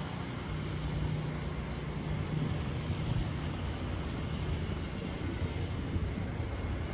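A motor vehicle's engine running with a steady low hum, over a continuous haze of street noise.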